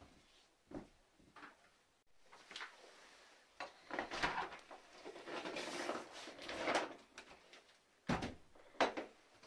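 Metal floor-hatch lid being pried up and lifted off a cellar opening, scraping and rattling for a few seconds, then two sharp knocks near the end as it is stood on end.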